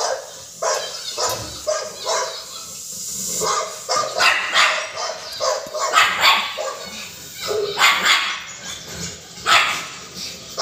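Pug barking repeatedly, in short barks that come singly or in pairs every second or two.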